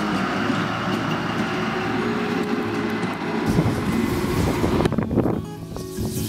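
Locomotive sounds: a locomotive running steadily, then, about three and a half seconds in, a steam locomotive getting under way with steam hissing from around its cylinders.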